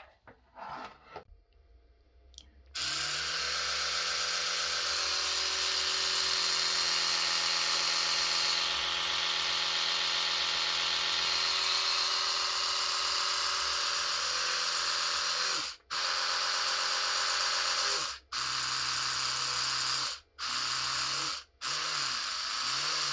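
Oral-B Genius X electric toothbrush motor switched on about three seconds in and buzzing steadily. It stops briefly several times as the cleaning modes are cycled, running lower for a spell. Near the end, in Gum Care mode, the buzz pulses up and down.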